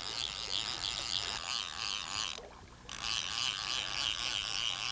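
River current and wind around a wading angler: a steady rushing hiss that drops out briefly about halfway through.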